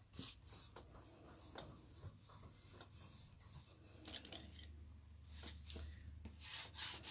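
Hands rubbing and sliding cardstock on a paper-covered desk: palms pressing down a freshly glued panel inside a folded card, then the card shifted. Faint, scattered scuffs and rustles that pick up near the end.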